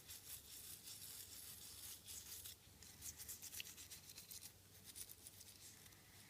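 Faint, quick scratching of toothbrush bristles scrubbing a phone logic board wet with isopropyl alcohol, in rapid repeated strokes that ease off a little after about four seconds.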